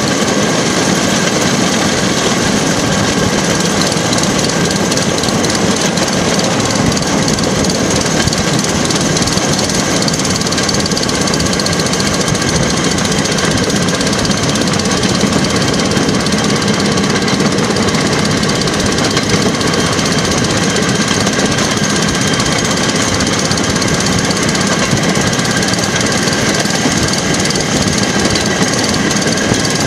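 Engine of a motorised rail track car running steadily as the car travels along the track, heard from on board.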